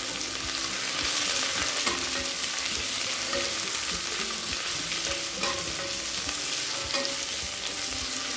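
Onions, green chillies and mint leaves sizzling in hot ghee in a stainless steel pressure cooker, a steady frying hiss, while a spatula stirs them with a few brief scrapes and knocks against the pot.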